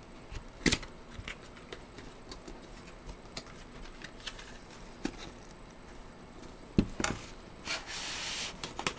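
A cardboard retail box being handled and turned over, with scattered small clicks and two sharper knocks, one near the start and one about two-thirds through. Near the end, the box is opened and cardboard rubs against cardboard for about a second.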